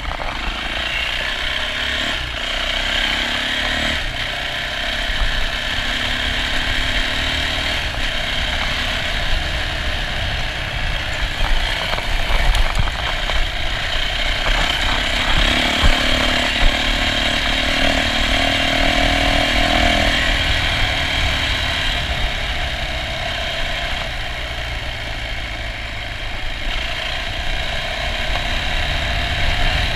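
Yamaha dirt bike's engine running as the bike is ridden along a dirt track, its pitch rising and falling with the throttle, over a steady low rumble.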